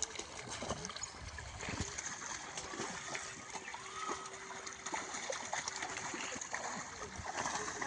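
Water splashing and sloshing irregularly, with many small scattered splashes.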